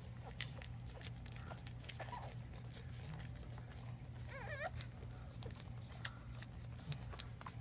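Newborn pug puppies nursing, with small clicks and rustles. About halfway through, one puppy gives a short wavering whimper, and a fainter squeak comes about two seconds in. A steady low hum runs underneath.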